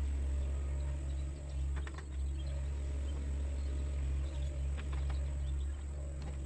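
Mini excavator's diesel engine running steadily, a constant low drone, with a few faint short ticks over it.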